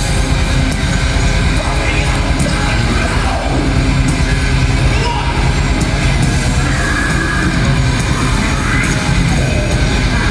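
A thrash metal band playing live at full volume: distorted electric guitars, bass and drums, with shouted vocals from the singer at times.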